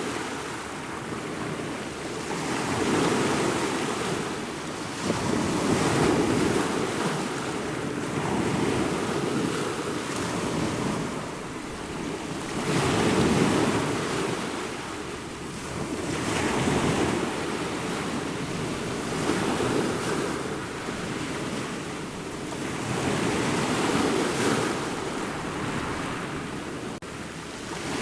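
Ocean waves breaking and washing in a steady surf, each swell rising and falling over about three to four seconds.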